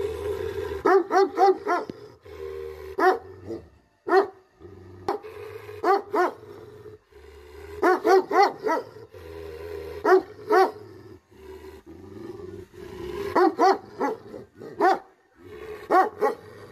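Chained Tibetan mastiff barking in repeated bursts, two to four quick barks at a time with short pauses between.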